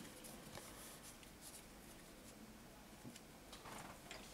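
Near silence: faint room tone with a couple of soft ticks.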